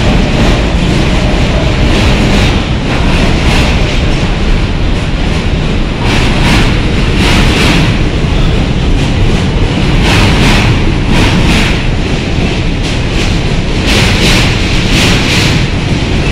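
New York City subway train running past the station platform: a loud, continuous wheel-on-rail rumble with recurring clacks as the cars cross the rail joints.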